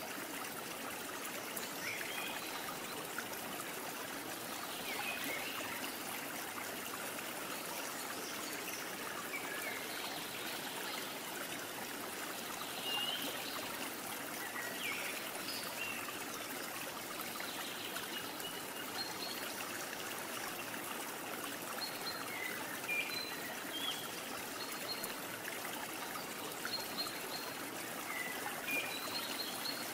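Steady rush of running water, with short high chirps scattered through it.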